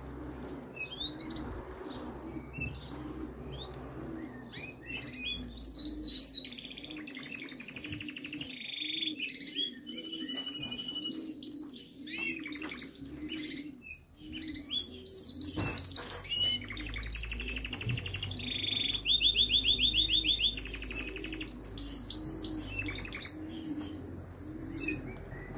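Wild songbirds singing, a mix of chirps, whistled notes and trills that grows busier after the first few seconds, loudest in a fast rattling trill about three-quarters of the way through. Underneath, a low coo repeats over and over from pigeons at the loft.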